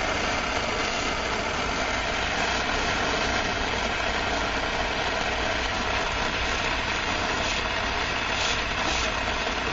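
MAPP gas hand torch burning with a steady hiss, its flame played on a steel knife blade to heat it for tempering.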